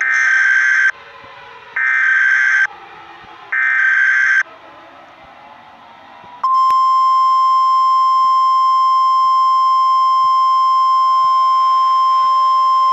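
Emergency Alert System header: three harsh buzzing data bursts about a second long each, followed about six and a half seconds in by a single steady electronic attention tone that holds on.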